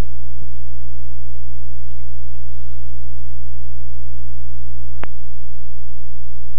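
Steady low hum on the recording, with faint keyboard taps in the first couple of seconds and a single sharp click about five seconds in, typical of a mouse click.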